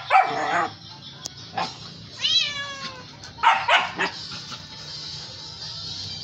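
Short calls from a pet animal. There are loud calls near the start, one call falling in pitch about two seconds in, and another loud call about three and a half seconds in.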